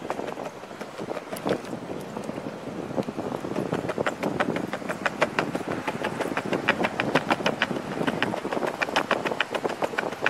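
Skateboard wheels rolling on a concrete sidewalk: a steady rumble with many rapid sharp clicks and clacks from the wheels and board over the pavement.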